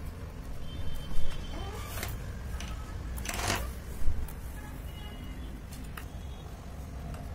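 Glue-and-toothpaste fluffy slime handled by hand, stretched and pressed, giving sticky clicks and crackles with louder bursts about a second in and about four seconds in. A steady low rumble runs underneath.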